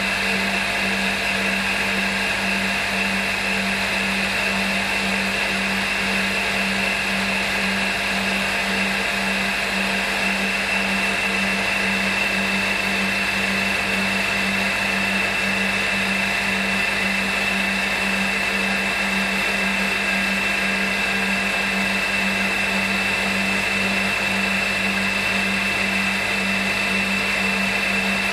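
A small CNC milling machine's spindle runs steadily, with a small end mill cutting the outside of a metal headphone-cable plug held in a collet. The sound is even and unchanging, with a steady whine over an even low throb.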